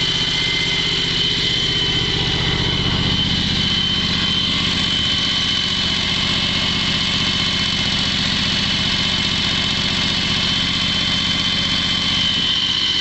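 A John Deere X585's 25-horsepower liquid-cooled Kawasaki engine, just started, running steadily at idle and heard up close with the hood open. A steady high-pitched whine sits over the engine note.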